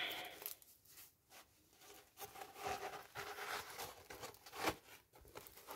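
Faint rustling of a plastic-covered diamond painting canvas being unrolled and laid flat on a light pad. The rustling starts about two seconds in, with a few soft clicks.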